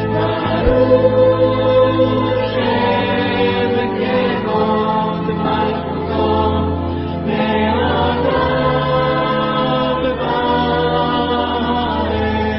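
Background music: a choir singing long held chords over a steady low drone, the chords changing every couple of seconds.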